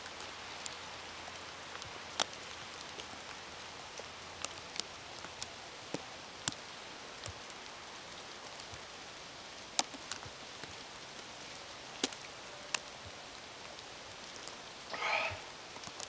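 Steady hiss of a wet snowstorm, with sharp drips and ticks landing at irregular moments from snow-laden trees. Near the end, a short voice sound from the man.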